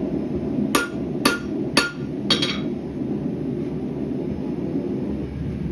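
Hand hammer striking hot rebar steel on an anvil: four ringing blows about half a second apart, the last a quick double, then the hammering stops about two and a half seconds in. A steady roar from the gas forge burner runs underneath.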